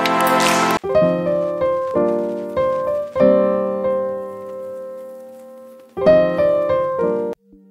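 Background music on a piano-like keyboard: a dense, full passage breaks off under a second in, then single notes and chords ring out one after another, with a louder entry about six seconds in, before the music cuts off suddenly near the end.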